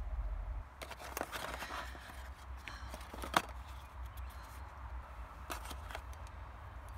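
Hands handling a phone's box and packaging: rustling and scattered clicks, with one sharp click about three and a half seconds in, over a steady low rumble.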